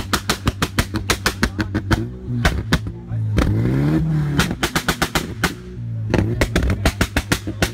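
VW Jetta Mk2 GTI's 2.0 8-valve four-cylinder held on launch control, its exhaust firing off rapid strings of loud bangs and pops, about seven or eight a second, as it shoots flames. Between the strings the revs climb, twice rising sharply.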